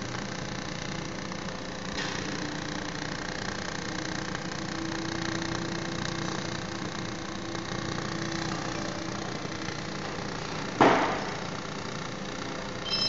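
Steady hum of a 400 W YAG laser welding machine running while it welds a stainless steel pot. One loud knock about eleven seconds in rings briefly, and a short high metallic ring comes near the end.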